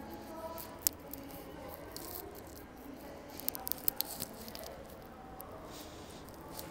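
Indoor room noise with a single sharp click about a second in and a quick run of several sharp clicks or taps between three and a half and four seconds in.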